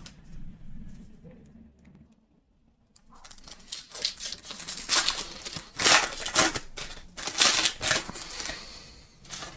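Trading-card pack wrapper being torn open and crinkled, a run of sharp rustling bursts after a second of dead silence about two seconds in.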